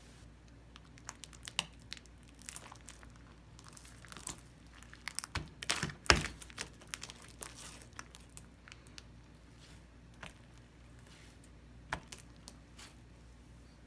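Slime being handled by hand for ASMR, giving scattered sticky clicks, crackles and tearing sounds. They come thickest in the middle, with the loudest snap about six seconds in, and thin out to occasional clicks near the end.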